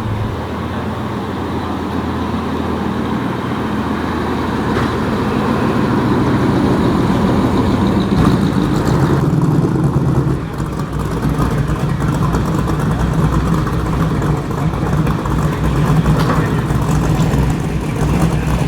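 A car engine running close by, with a steady low hum. It grows louder over the first several seconds, then its tone shifts about ten seconds in.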